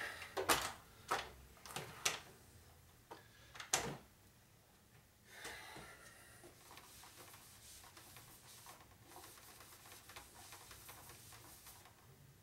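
A few sharp metal clicks and knocks as the cylinder hone and its electric drill are handled and set down, the loudest about half a second and about four seconds in, followed by faint steady rustling of hands being wiped on a rag.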